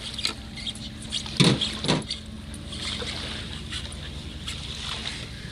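Hand ratchet clicking in short, irregular runs as a 10 mm bolt holding the intake manifold of a Yamaha 20 HP four-stroke outboard is turned out, with two sharper metal knocks about one and a half and two seconds in.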